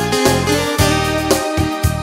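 Instrumental break in an Italian pop-folk song, with no singing: held chords over a steady beat.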